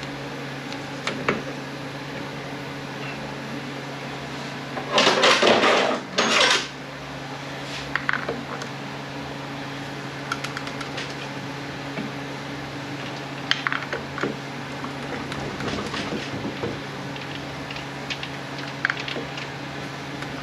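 Metal transmission parts and hand tools clinking and knocking as an automatic transmission is taken apart, with a louder metal clatter about five to seven seconds in.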